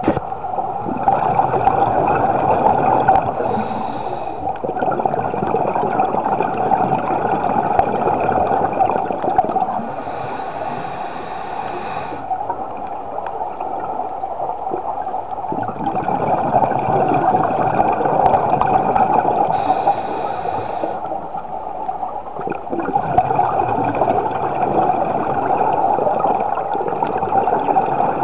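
Underwater sound of a scuba diver's breathing through a regulator: exhaled bubbles gurgling in surges a few seconds long, with quieter gaps between breaths.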